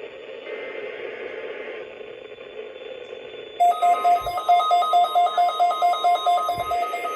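Weather radio receiver hissing with static, then about three and a half seconds in its alert beeper starts: rapid electronic beeps at two pitches, about four a second, which is the radio being set off by an alert test.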